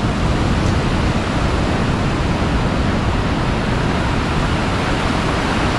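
Ocean surf breaking on the beach: a steady, even rush of noise with no distinct breaks.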